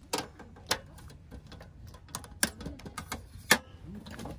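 A series of irregular sharp clicks and taps of small hard objects being handled, about a dozen in four seconds, the loudest about three and a half seconds in.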